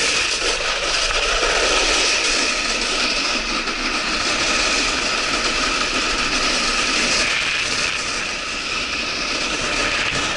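Steady scraping hiss of a snowkiter sliding over icy spring slush, with wind noise on the microphone.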